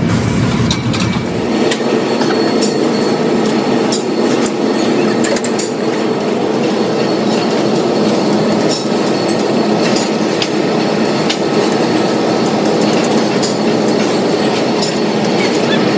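A steady, loud mechanical rumble of workshop machinery, with a rapid scatter of light clicks and clatter running through it.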